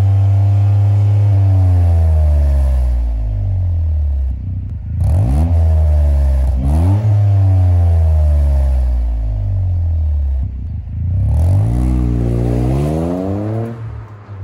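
Toyota GR Yaris's 1.6-litre turbocharged three-cylinder engine revved while standing, heard through a Rosso Modello aftermarket muffler. The revs fall away from high at first, are blipped up sharply twice about five and seven seconds in, climb once more after about eleven seconds, then drop back near the end.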